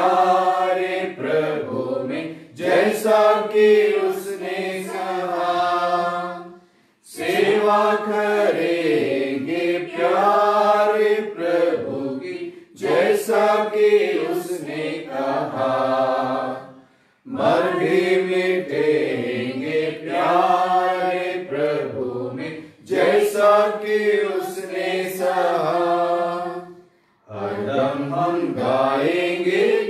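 A man's voice sings a Hindi devotional hymn solo and without accompaniment, in phrases of about five seconds with a short breath between each.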